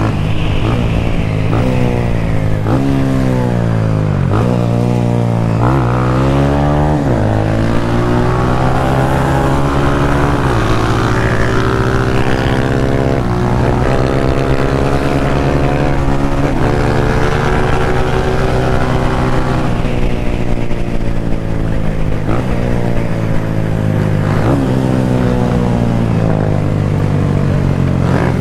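Motorcycle engine under way, its pitch climbing and dropping sharply several times as it shifts gears, then holding steadier through the middle before rising and falling again near the end. Rushing air noise runs underneath.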